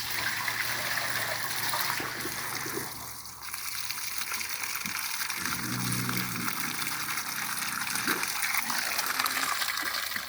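Water running into a sink and draining through its plumbing: a steady splashing rush that dips briefly about three seconds in.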